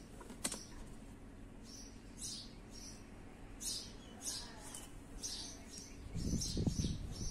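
Small birds chirping over and over in short, high calls. A single sharp click comes about half a second in, and uneven low rumbling bursts begin near the end.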